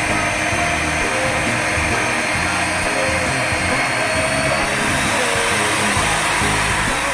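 Electric motor of a hydraulic HDPE butt fusion welding machine running steadily, with a pop song playing underneath.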